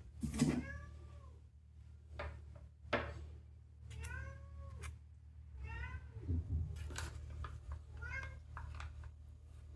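House cats meowing about four times, each call rising then falling in pitch, while they wait to be fed. A few light clicks and knocks come between the calls, over a steady low hum.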